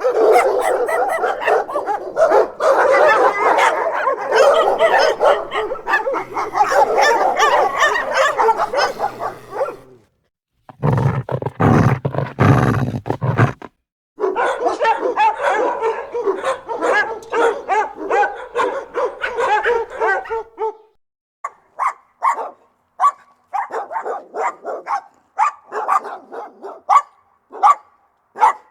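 Rottweiler barking aggressively in several spliced clips. Dense, rapid barking for about the first twenty seconds, broken by a short cut about ten seconds in, then separate barks about one to two a second near the end.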